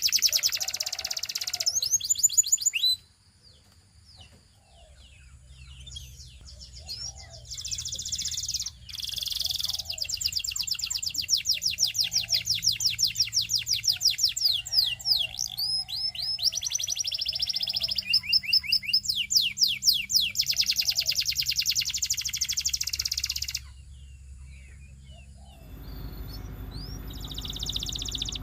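Canary singing long, fast trills of rapidly repeated high notes. The song breaks off about three seconds in, comes back and runs on, then pauses again near the end before starting once more.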